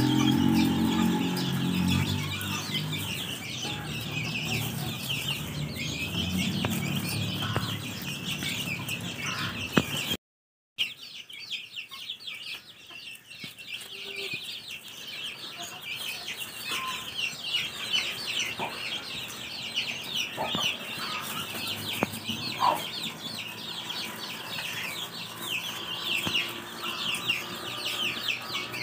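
A flock of chicks peeping continuously in many rapid, overlapping high calls while foraging, with a hen clucking low near the start. The sound cuts out briefly about a third of the way in.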